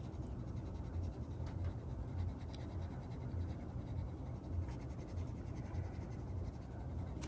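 A Mondo Llama colored pencil, unsharpened and straight out of the box, scratching faintly across coloring-book paper in repeated short shading strokes. The lead feels a little scratchy on the page.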